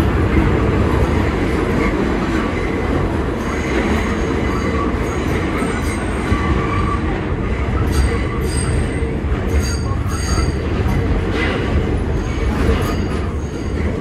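R46 subway train running through a tunnel, heard from inside the car: a steady, loud rumble of wheels on track, with brief high-pitched wheel squeals several times.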